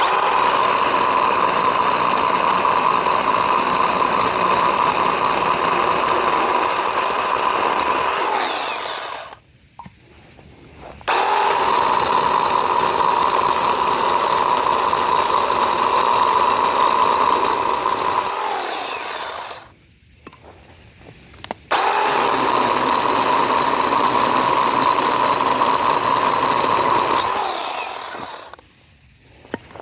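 Ryobi P546 18-volt brushed cordless chainsaw running in three bursts of several seconds each as it cuts through a small branch: a steady high whine of motor and chain. Each burst starts suddenly and winds down with falling pitch when the trigger is released.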